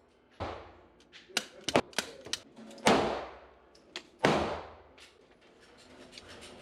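Three rifle shots at the range, a second or two apart, each with a ringing tail, with several smaller sharp clicks and knocks between the first two.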